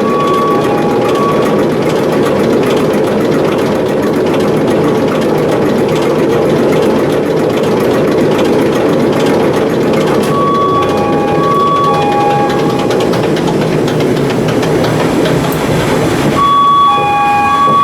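Akasaka AX31R marine diesel main engine running steadily and loudly on the test bed. A two-tone electronic alarm beeps intermittently over it, about ten seconds in and again near the end.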